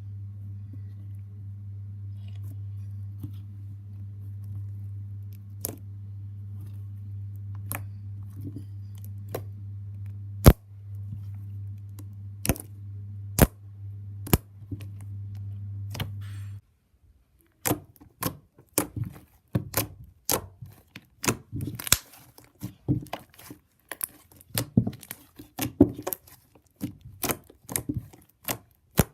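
Sharp clicks and taps from small objects being handled close to the microphone, over a steady low hum that cuts off about two-thirds of the way through. After that the clicks and crackles come thick and irregular.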